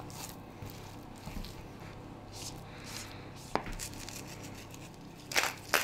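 Faint rubbing and handling noises of raw meat being turned on a plastic cutting board, over a low steady room hum, with a light tap about three and a half seconds in and two sharp clicks near the end.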